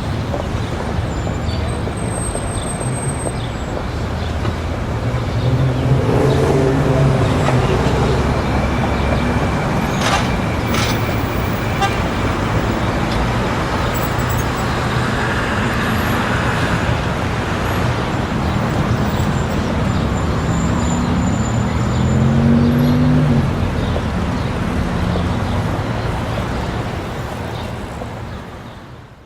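Busy city street traffic: a steady roar of passing cars and engines with car horn toots and a murmur of crowd voices, fading out near the end.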